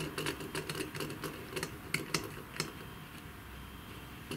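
Light irregular clicks and taps, about ten over the first two and a half seconds, then quieter, as a wire is fitted and fastened into the screw terminals of a CNC breakout board.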